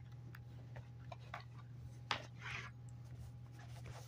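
Faint clicks and rustles of hands handling a toy's packaging, with a short scraping rustle about two seconds in, over a steady low hum.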